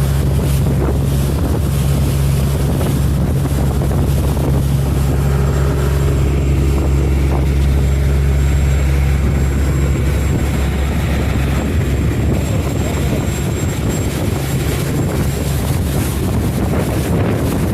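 Marine engine of a boat underway (a six-cylinder, four-stroke Volvo), running with a steady low drone, with wind buffeting the microphone. The engine hum eases off somewhat about two-thirds of the way through.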